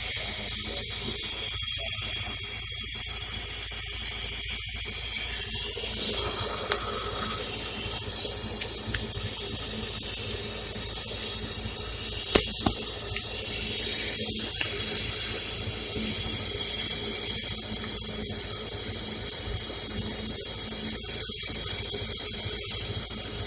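Mazda RX-8's two-rotor Renesis rotary engine idling warm, with a loud, steady hiss that the owner takes for a vacuum leak. A couple of brief knocks come about halfway through.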